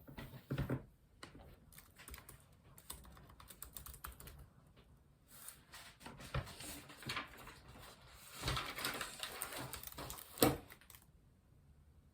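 Irregular light clicks and taps with a louder knock about ten and a half seconds in; the tapping stops about eleven seconds in.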